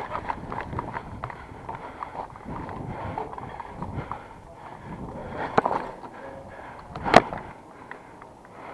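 Footsteps and gear rustle of airsoft players moving over gravel and onto a concrete floor, irregular scuffs and clicks. A single sharp snap about seven seconds in is the loudest sound.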